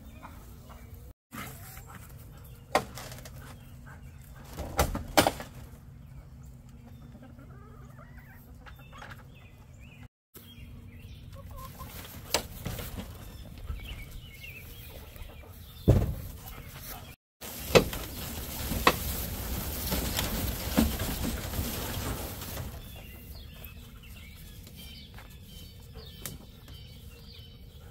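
Laying hens clucking in a wooden, wire-sided chicken tractor, with several sharp knocks and a few seconds of rushing noise about two-thirds of the way through.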